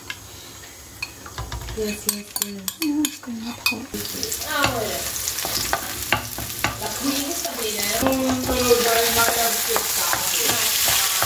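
Wooden spoon clicking and scraping in a nonstick frying pan, then hot oil sizzling from about four seconds in as chopped spring onion, garlic and tomato wedges fry. The sizzling grows louder toward the end.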